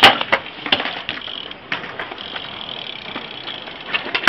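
A BMX bike lands with a loud clack on concrete right at the start, then its rear hub ratchets with a fine ticking as the wheels freewheel while it coasts, with a few more knocks from the tyres and frame.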